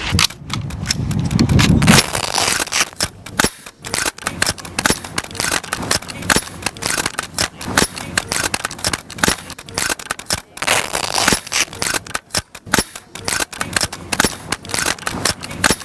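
A firing line of military rifles shooting, many sharp shots in quick, irregular, overlapping succession from several shooters at once. A low rumble runs under the first two seconds.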